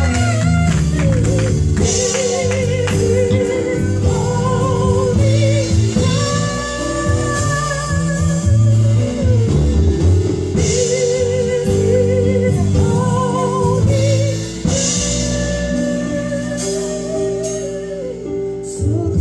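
A women's gospel group singing long held notes with vibrato, backed by a band with bass and drums.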